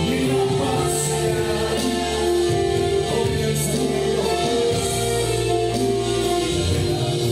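Live worship band music: a woman singing over electric guitar, bass, drums and a Yamaha PSR-S775 keyboard, with a few cymbal crashes.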